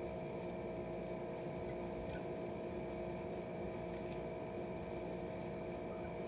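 Steady hum made of several held tones over a low rumble, from a machine or appliance running in the room. A few faint, soft clicks of a plastic fork and chewing come through here and there.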